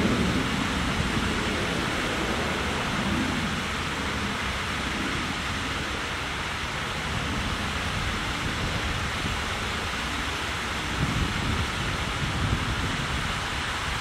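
Steady rushing background noise with an uneven low rumble underneath, and no distinct events.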